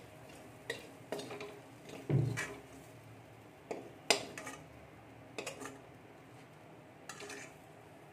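Metal spoon scraping and clinking against a metal kadhai, scooping out the last of the cooked noodles in short, irregular strokes. A sharp clink a little after four seconds in is the loudest.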